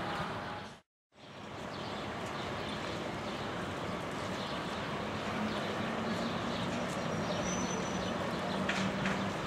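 Steady outdoor city noise that cuts out briefly about a second in. From about halfway a low hum grows louder as a Moscow monorail train approaches on its elevated track, with a couple of short high tones near the end.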